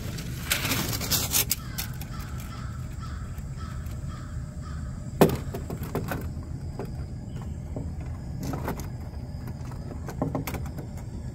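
Folding aluminium stove-windscreen panels clink and knock as they are set up around a canister gas camp stove, with the loudest knock about five seconds in and more clatter near the end. A crow caws early on, over a steady low rumble.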